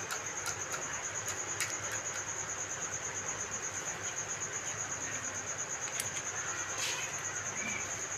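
An insect, cricket-like, trilling steadily in a fast, even, high-pitched pulse, with a few faint clicks scattered through.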